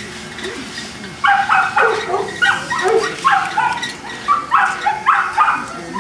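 Boston Terrier yipping: a rapid series of short, high-pitched yips, about three or four a second, starting about a second in.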